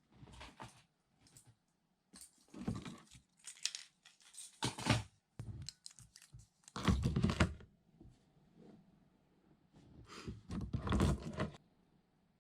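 Irregular rustling and knocking handling noises in uneven clusters, the loudest about seven seconds in and another near the end.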